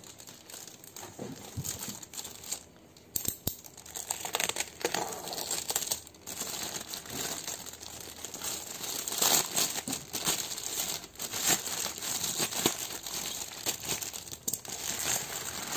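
Red plastic shipping bag crinkling and rustling as it is torn open by hand. It makes a dense string of crackles starting about a second in, with a short lull partway through.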